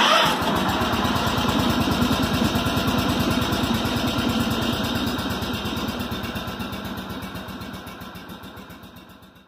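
A small engine running steadily with an even, rapid beat of firing pulses. It starts abruptly and fades out over the last few seconds.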